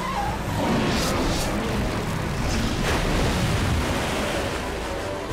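Cartoon action sound effects: a loud, dense rushing noise with a few quick whooshes about a second in and again near three seconds, and faint music underneath.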